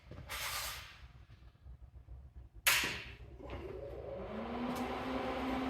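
Lincoln Tomahawk 375 plasma cutter firing on an ArcDroid CNC: a short puff of air hiss, then the arc strikes with a sharp loud hiss about two and a half seconds in. It settles into a steady buzzing drone as the torch cuts the part.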